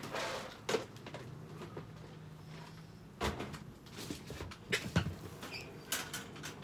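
A few scattered knocks and clicks with a little rustling, as things are handled by the wire dog pens, the loudest about three and five seconds in.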